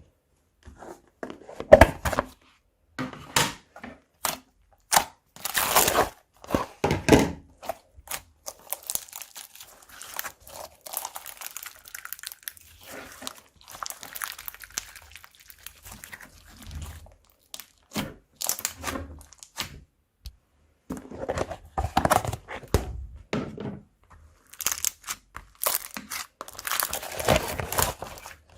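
Hands squeezing, stretching and folding a crunchy slime, which crackles and pops in irregular bursts with softer crinkling in between.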